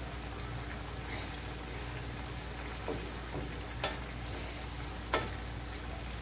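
A frying pan of bamboo shoots in broth simmering and sizzling steadily while a wooden spatula stirs it, with a few light knocks of the spatula against the pan in the second half.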